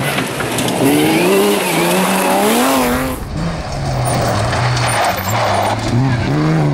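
BMW 325 rally car on a gravel stage: the engine revs up hard with a steadily rising pitch, then after a cut about three seconds in its note is lower and wavers up and down as the car slides through a corner, with a hiss of tyres on loose gravel underneath.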